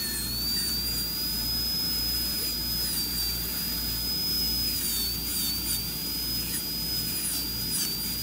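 High-speed air-turbine dental handpiece whining steadily with a burr cutting a class II cavity preparation for an amalgam filling. Its high pitch dips slightly a few times.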